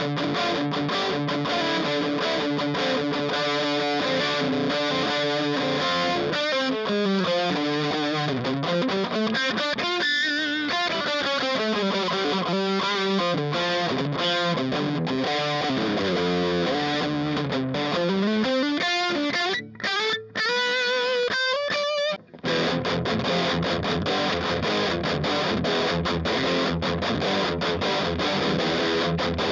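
1980 Greco EG600 Les Paul Custom copy electric guitar played with heavy distortion through a small Orange amp. Held chords give way to fast runs sweeping up and down the neck. The sound cuts out briefly a few times about two-thirds of the way through, then distorted chords ring again.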